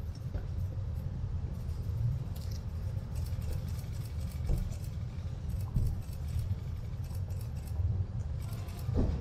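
Steady low rumble with many light, scattered clicks and jingles.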